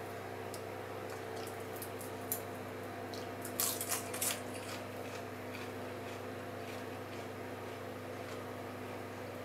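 A hand picking up and breaking apart clusters of hardened caramel-coated popcorn on parchment paper: scattered sticky crackles and rustles, with a brief, louder run of crunches about three and a half seconds in. A steady low hum runs underneath.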